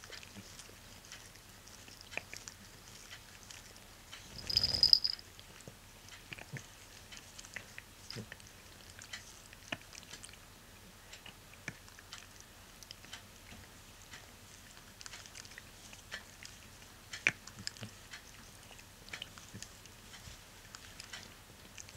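A cat grooming itself, with soft wet licking clicks of its tongue on its paw and fur. About four and a half seconds in comes a brief louder rustling noise.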